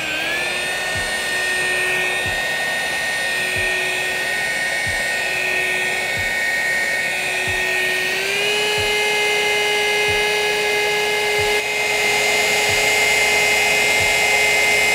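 Rotary polisher with a coarse wool pad running at about 1400 RPM, a steady electric motor whine that steps up a little in pitch about eight seconds in. It is cutting 3000-grit wet-sanding marks out of car paint with compound.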